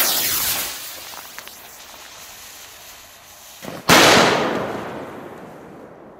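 A loud hiss from the fuse being lit fades over the first second. About four seconds in, a single firecracker goes off with one sharp bang, the loudest sound here, which rings out and dies away over about two seconds.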